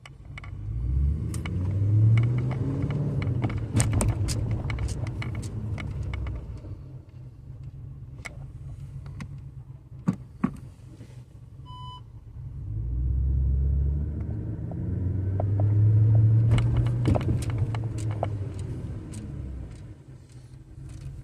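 2014 Audi RS5's V8 engine and drivetrain heard from inside the cabin as the car is driven over bumps, the engine pitch rising and falling twice as it pulls away and slows. Sharp clicks and knocks come through as the suspension hits the bumps, from a front-left corner said to knock and rattle over bumps.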